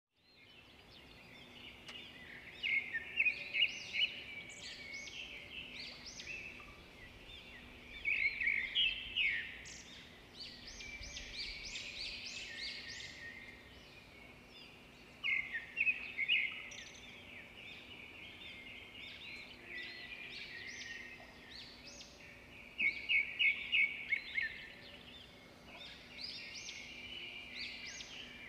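A songbird singing: phrases of rapid high chirps and trills every few seconds, with scattered single chirps between them, over a faint steady low hum.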